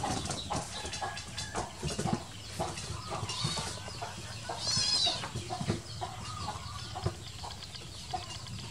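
A baby monkey and a kitten scuffling on a woven mat: many soft knocks and rustles. A few short high squeaks or chirps come about three and five seconds in.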